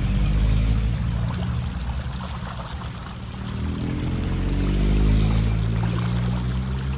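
Shallow stream water flowing and splashing as a person washes in it, scooping and pouring water over herself. Under it runs a low droning hum that rises in pitch around the middle.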